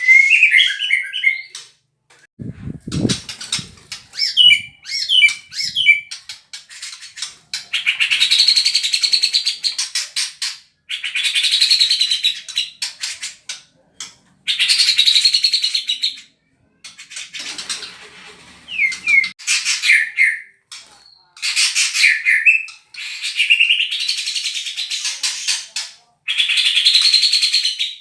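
White-rumped shama (murai batu) singing a tight imitation of the cucak jenggot (grey-cheeked bulbul) song. It repeats fast rattling phrases of two to three seconds each, with short whistled and gliding notes between them.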